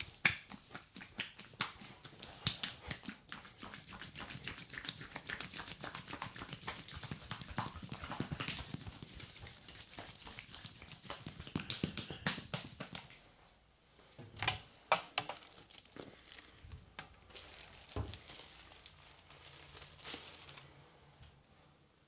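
Hands rubbing and kneading foam-covered bare skin during a massage, a dense run of wet squishing and small smacking crackles. It eases after about thirteen seconds, with a few louder smacks later.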